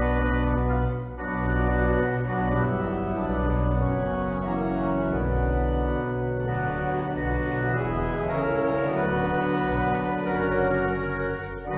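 Church organ playing sustained chords over a deep pedal bass, with a short break between phrases about a second in and again near the end.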